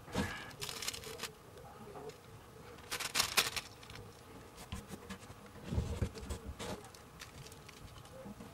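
Dry shredded herb being crumbled by hand and a rolling paper handled while a joint is rolled: crackly rustling with scattered small clicks. A louder burst of rustling comes about three seconds in, and a dull bump near six seconds.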